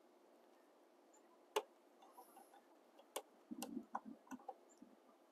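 Mostly near silence, broken by a few faint, sharp clicks of a small flat screwdriver and gloved hands working the cord's wire terminals inside the EV charger's plastic housing. The clicks come singly, one about one and a half seconds in and the rest bunched together over the last two seconds, with a brief rustle among them.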